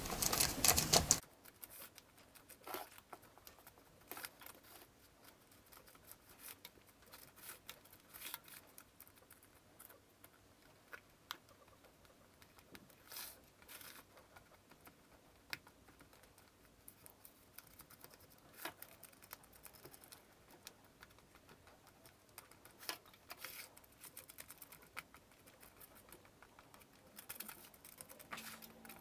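Spatula pressing and scraping a crumbly almond- and oat-flour crust into a parchment-lined springform pan: faint, scattered scrapes and soft taps, louder for about the first second.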